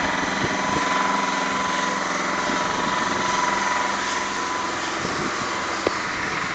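Pressure washer running steadily: a constant engine and pump drone with the hiss of the water jet, and one short click near the end.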